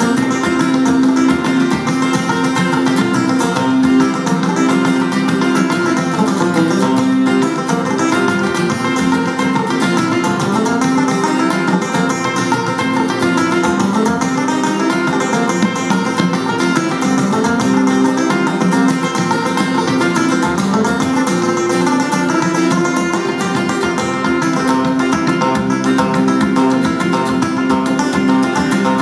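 Live instrumental folk tune on tenor banjo with acoustic guitar and bodhrán. The banjo carries the picked melody over strummed guitar chords and a steady drum beat.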